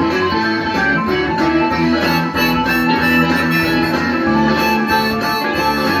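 Harmonica in a neck rack playing held notes over strummed guitar, one person playing both at once.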